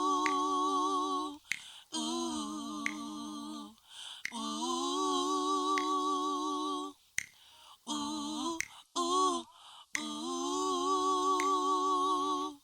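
Song intro of slow, held harmonised chords with a wavering vibrato, each lasting a few seconds with short breaks between them. A light snap-like click sounds now and then.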